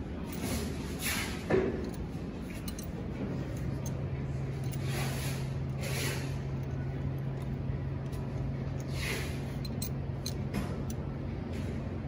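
Hand work with an open-end wrench on a brass hydraulic hose fitting: a sharp metal knock about a second and a half in, short rustles of hands and hose, and a few light clicks near the end. A steady low hum comes in about three seconds in.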